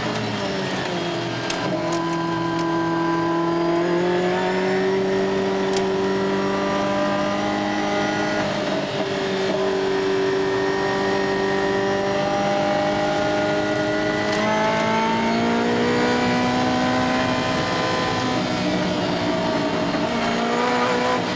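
Ferrari F40's twin-turbo V8 pulling hard under acceleration, heard from inside the cabin. The engine note climbs and then drops back several times as it accelerates and shifts up, with a few brief clicks and knocks.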